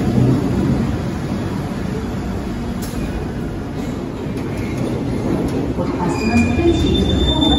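London Underground Bakerloo line 1972 Stock train running along the platform and slowing, a steady low rumble of wheels and motors. Near the end high-pitched squeals come in as it brakes to a stop.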